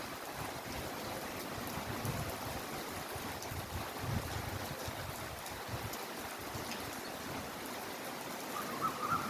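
Steady heavy rainfall: an even hiss of falling and running water with scattered sharp drip ticks.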